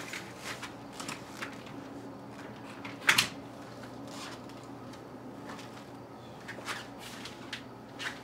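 Quiet footsteps and clothing rustle in a small room over a low steady hum, with a door being handled. One sharp click about three seconds in is the loudest sound.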